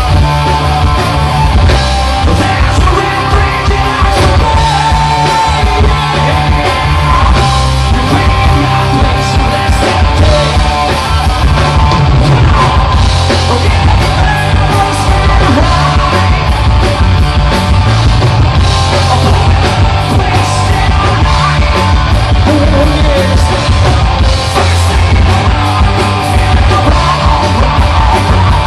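Live rock band playing loud, electric guitars and drums with a singer, in a hard-rock song.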